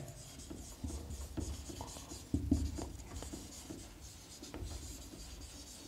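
Marker pen writing on a whiteboard: an irregular string of short scratching strokes as a word is written, one stroke a little louder about two and a half seconds in.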